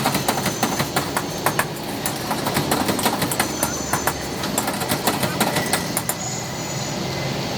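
A quick, irregular run of sharp taps and clicks over a steady background of street traffic noise.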